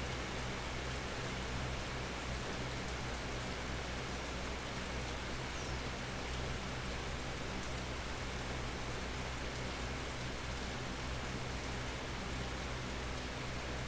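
Steady natural rain falling under an almond tree: an even, unbroken hiss of drops, with a low steady hum underneath.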